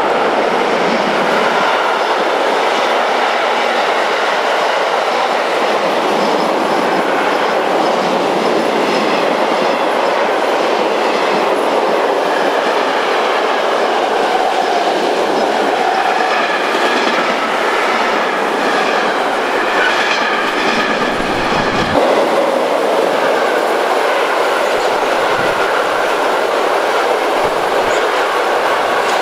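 Long freight train of tank, hopper and silo wagons rolling past close by, steady and loud, with wheels clattering over the rail joints and a faint high wheel squeal at times.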